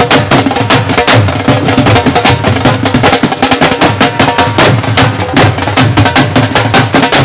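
Two dhols played together with sticks in a rapid, steady run of strokes: deep bass-side booms under sharp, dry cane clicks, in a nine-beat (9 matra) taal.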